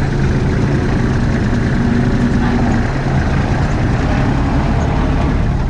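Heavy dump truck's diesel engine running steadily, with a low, even drone.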